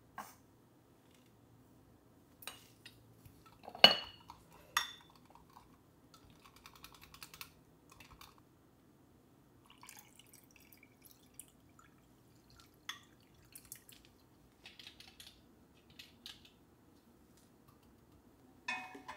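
Tableware being handled: scattered light clinks and taps with faint scraping between them. The loudest is a ringing clink about four seconds in, followed by another a second later.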